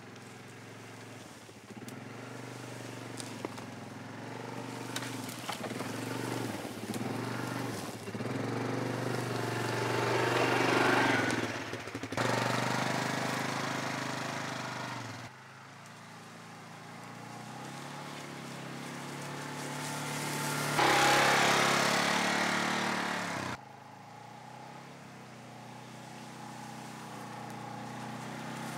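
A 2014 Polaris ACE's single-cylinder 327cc engine running as the machine drives through tall grass, its sound swelling as it comes close, loudest about ten and twenty-one seconds in, with sudden drops in level between shots.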